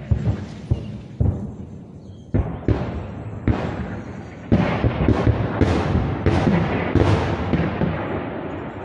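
Artillery cannonade: a run of booms and cracks, scattered at first, then coming thick and fast and louder from about halfway through.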